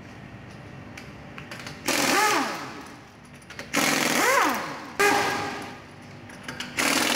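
Pneumatic impact wrench spinning lug nuts off a car wheel in four bursts, each rising then falling in pitch as the air motor spins up and winds down. The last burst is still running at the end.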